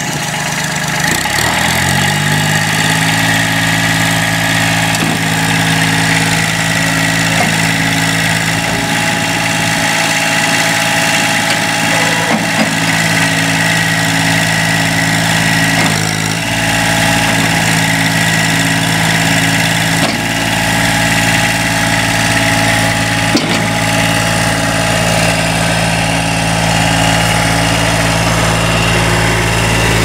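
The Allmand TLB225 backhoe loader's Kubota 905 three-cylinder diesel, just started, picks up speed over the first couple of seconds. It then runs at a steady speed.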